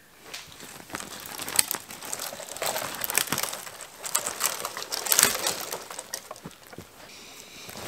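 Dry twigs of a dead tree crackling and rustling as it is dragged through dry grass and dropped, in an irregular run of crackles with louder bursts about 1.5, 3 and 5 seconds in.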